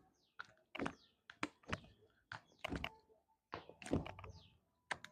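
A series of sharp thumps, about two a second and often in quick pairs, made by hands working on a patient's body during a chiropractic treatment.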